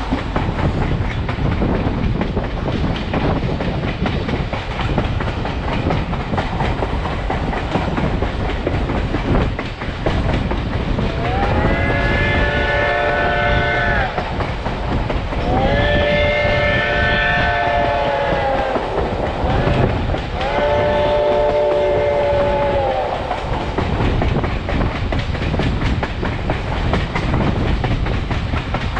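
Passenger train rolling along with a steady rumble and clickety-clack of wheels over the rail joints. In the middle, the steam locomotive's three-chime whistle, Reading & Northern No. 2102's, sounds three long blasts, each two to three seconds, several notes at once.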